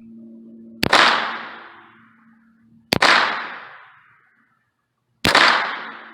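Three .22 rimfire shots from an AR-15 pistol running a .22 conversion kit, fired singly about two seconds apart. Each is a sharp crack that dies away over about a second.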